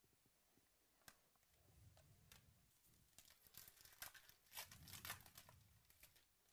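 Foil trading-card pack wrapper being torn open and peeled off the cards: faint crinkling and crackling with small clicks, starting about a second in and busiest in the second half.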